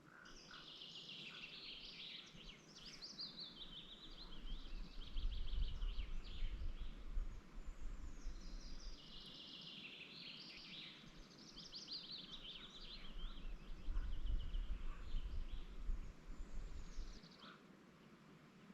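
Songbirds singing in two long, busy stretches of quick high notes, with a pause of about a second between them. Under them a low rumble swells twice, about four seconds in and again near the end, and is the loudest thing heard.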